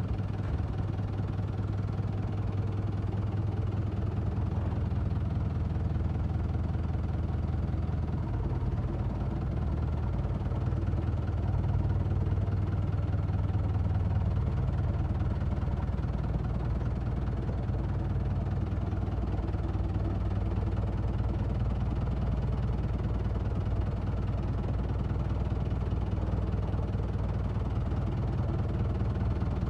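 Kubota M7970 tractor's diesel engine running steadily, its note shifting slightly about eight seconds in.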